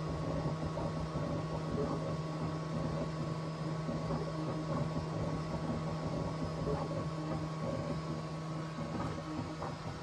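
Bambu Lab X1 Carbon 3D printer running a print, standing on a concrete slab over foam: a steady low hum with a few fainter higher tones and shifting mechanical noise from the moving print head.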